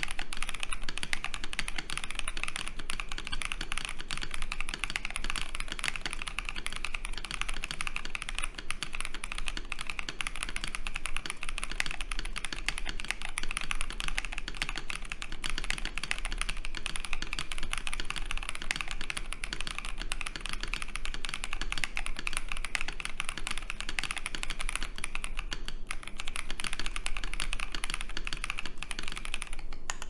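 Continuous typing on a KBD67 Lite R2 mechanical keyboard built with a polycarbonate plate, full foam, Holy Boba tactile switches lubed with Tribosys 3203, and PBT keycaps: a dense, even run of keystrokes with no pauses.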